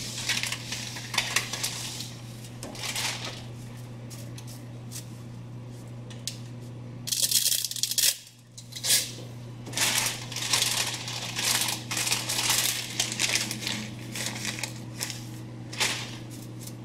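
Dry spaghetti noodles snapped in half by hand, the pieces dropping into a pot of broth: irregular bursts of brittle cracking, the loudest about seven seconds in, over a steady low hum.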